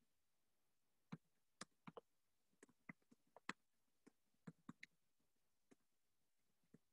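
Faint, irregular keystrokes on a computer keyboard as text is typed, a few sharp clicks a second with short gaps between them.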